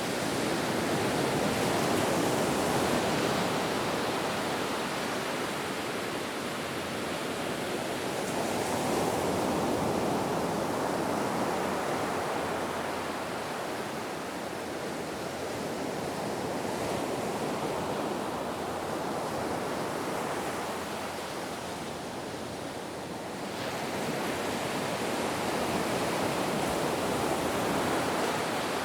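Ocean surf on a beach: a continuous rush of breaking and washing waves that swells and eases, with a louder surge about every eight seconds.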